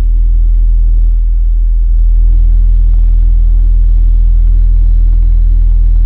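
Subwoofer in an enclosure tuned to 40 Hz playing a steady 40 Hz sine test tone, which gets louder about two seconds in as the amplifier's bass knob is turned up.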